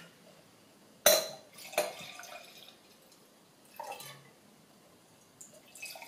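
White wine being poured from a bottle into a wine glass, the liquid running into the glass in two spells, in the middle and near the end. About a second in there is a sharp click, then a smaller one.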